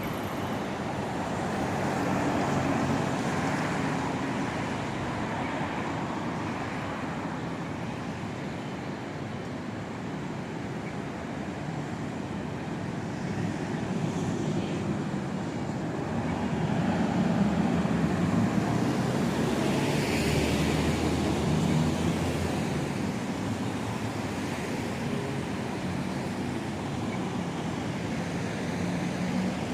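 City street traffic: a steady wash of road noise from passing vehicles and their engines, swelling as traffic goes by about two seconds in and again from about seventeen to twenty-two seconds.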